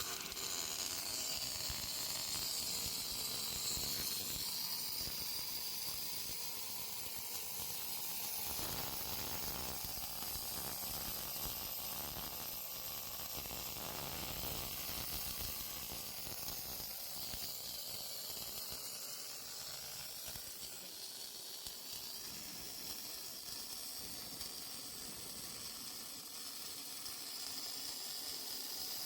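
Automatic MIG welding machine running a longitudinal seam on a tank: the welding arc giving a steady, even hiss throughout.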